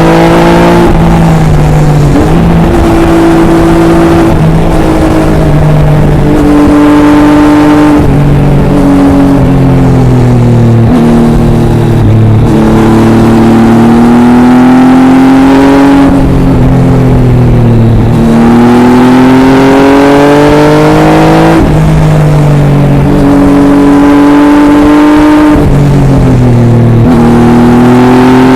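Triumph Tiger 800 XRx's 800 cc inline three-cylinder engine through an Arrow exhaust, heard onboard while ridden: the revs climb and fall again and again, with sudden drops in pitch at gear changes and slower falls as the throttle is rolled off.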